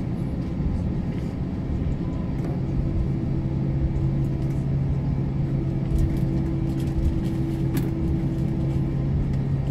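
Cabin noise of an Airbus A321 taxiing with its jet engines at idle: a steady hum and a constant low rumble, with a few light clicks.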